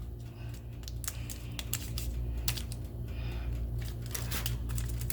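Scattered small clicks, scrapes and crinkles of warm cookies being pried and torn loose from a baking tray, over a steady low hum.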